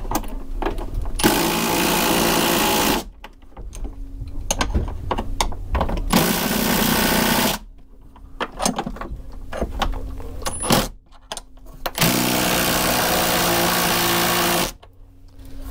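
Ryobi cordless drill spinning a socket on the bolts through a frame, run in three bursts of about one and a half to nearly three seconds, the last the longest. Clicks and knocks of handling come between the bursts.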